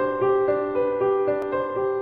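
Background piano music: a melody of held notes, changing a few times a second.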